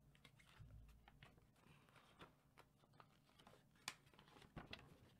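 Near silence with faint paper rustling and small clicks from a folded lyric insert being drawn out of a CD package and opened, with one sharper click about four seconds in.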